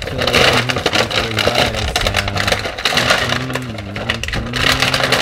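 Crinkly plastic candy packaging being handled and torn open, a continuous rapid crackling.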